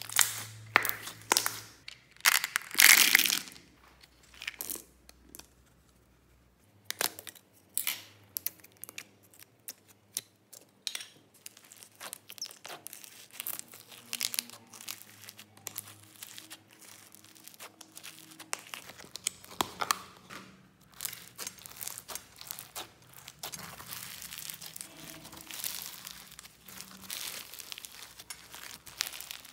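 Hand-kneaded slime making sticky pops, clicks and squelches, with the loudest pops in the first few seconds. After that, foam beads in floam slime crackle and crunch as fingers dig into and stretch it.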